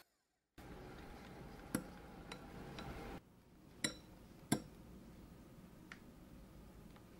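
A few light, sharp clinks of metal against a glass mixing bowl, three of them louder than the rest, over a faint steady hiss.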